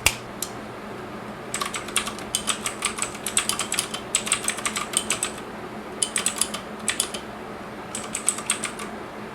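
Typing on an E-YOOSO Z-19 mechanical keyboard with clicky blue switches and PBT keycaps: five short bursts of rapid clicks with brief pauses between them.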